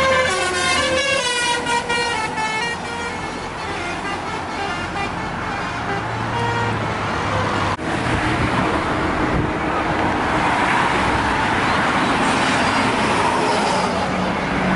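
A bus's telolet musical air horn plays a quick multi-note tune that ends about two seconds in. It is followed by the steady rush of a large vehicle's engine and tyres driving past.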